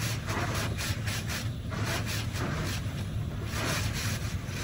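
HydroSpray Rainmaker touch-free car wash spraying water against the car, heard from inside the cabin: repeated hissing pulses of spray over a steady low hum.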